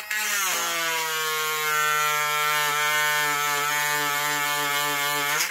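Handheld rotary die grinder with a carbide bit, cutting through a metal rod: a steady high motor whine that settles slightly lower in pitch as the bit bites into the rod, then stops near the end.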